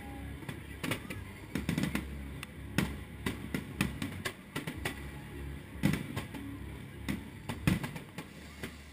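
Fireworks show: aerial shells bursting overhead, an irregular run of bangs and crackles with a few heavier booms among them, over a steady low rumble.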